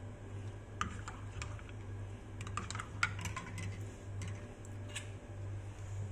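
Irregular light clicks and taps of a spoon against a mug and a plastic honey tub, from about a second in until about five seconds in, over a steady low hum.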